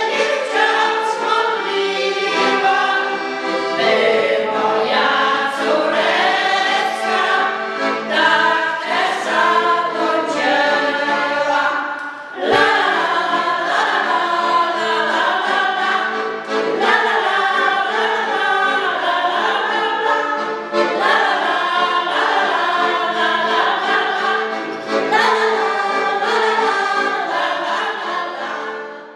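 A folk choir of mostly women's voices sings a Polish folk song in unison over a piano accordion, with short breaks for breath between phrases, and fades out at the very end.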